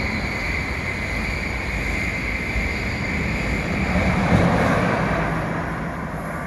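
Train pulling into a station: steady rumble of the train running on the rails with a held high-pitched tone over it, growing a little quieter toward the end.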